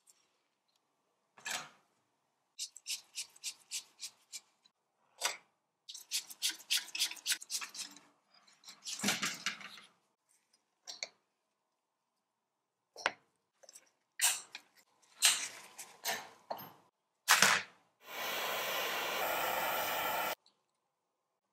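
Small tin-toy metal parts clicking, tapping and rattling as they are handled on a workbench. Near the end a handheld tool held to the carousel's metal hub runs with a steady hiss for about two seconds, then stops abruptly.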